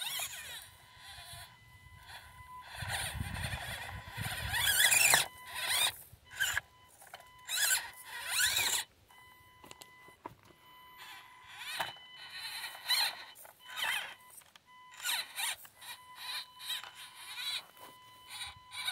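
Axial SCX24 micro RC crawler's upgraded P90 electric motor and gearbox whining in stop-start bursts, the pitch rising and falling with the throttle as it crawls, with clicks and scrapes of the tyres on rock.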